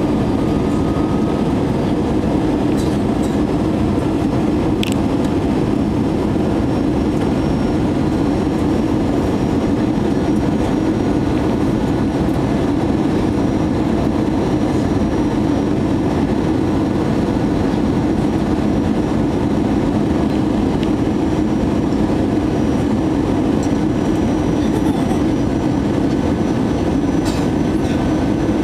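Steady cabin noise inside an Airbus A320-200 on its descent to land, heard from a window seat beside the wing engine: a constant, even rumble of the jet engine and the airflow. There are a few faint clicks.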